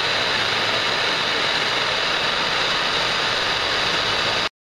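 Handheld gas torch flame hissing steadily while heating a copper pipe joint for soldering; the sound cuts off suddenly near the end.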